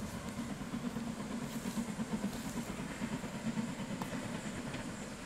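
Harz narrow-gauge steam locomotive and its train, a steady pulsing low rumble with a faint hiss.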